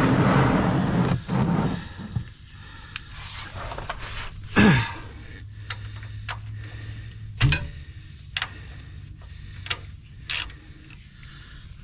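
A person sliding about under a pickup truck: a loud scraping rustle at first, then scattered sharp clicks and knocks of tools on metal.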